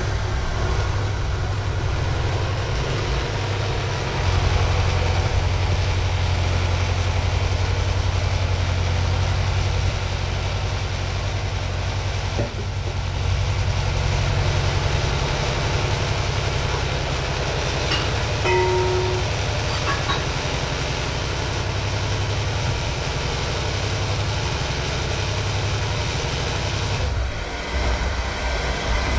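Electric hand mixer running continuously, its beaters whisking liquid in a plastic measuring jug, with a steady motor hum that gets louder about four seconds in.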